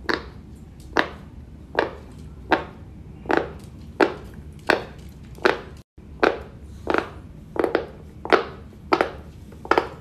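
A large square silicone pop-it fidget toy pressed down row by row by hand, giving sharp pops in a steady rhythm a little faster than one a second.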